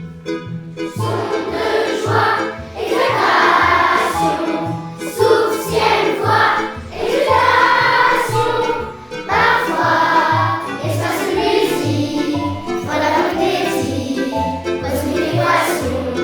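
A group of voices singing a jazz melody together in phrases, over a low bass line that moves about twice a second.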